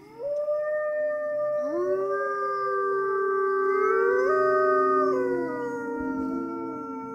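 Several arctic wolves howling together. One long howl starts, a lower voice slides in about a second and a half later, and more join, their overlapping held notes gliding up and down before they thin out near the end.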